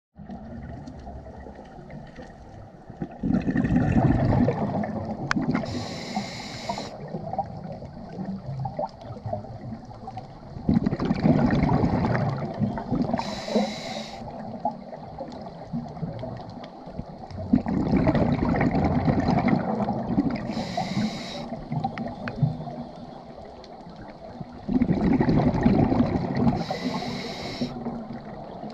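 Scuba diver breathing through a regulator: four rounds of exhaled bubbles rumbling and gurgling about every seven seconds, each followed by a short high hiss as the diver inhales through the demand valve.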